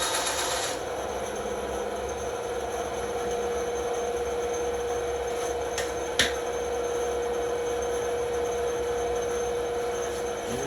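A small power tool running steadily with wood rubbing against it, a constant hum under a rasping hiss that eases off about a second in. Two sharp clicks about six seconds in.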